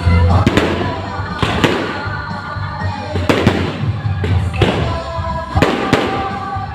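Aerial fireworks exploding in a rapid, irregular salvo, about a dozen sharp bangs with echoing tails, one or two a second, over music playing underneath.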